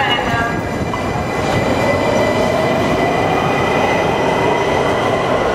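Washington Metro (WMATA) train moving at the station platform: a steady rumble with a high whine over it and a middle tone that rises slightly in pitch.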